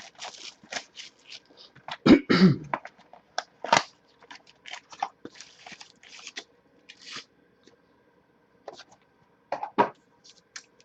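Trading-card packaging being opened by hand: irregular crinkling, tearing and crackling of cardboard and wrappers, with a louder rip about two seconds in and another near four seconds.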